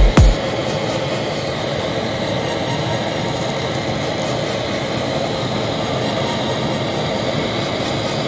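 A handheld gas blowtorch on an LPG cylinder roars steadily as its flame singes the hair off a pig carcass. Two deep, falling booms come right at the start.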